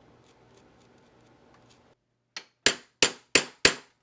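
Sharp metallic clangs: one light strike, then four loud strikes in even succession about a third of a second apart, each ringing briefly. Faint soft ticking comes first, about four a second.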